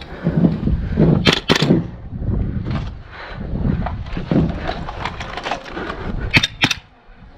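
Airsoft gun shots, two quick pairs of sharp cracks about a second in and again near the end, over the rustle, bumps and wind rumble of a player moving with a body-worn camera.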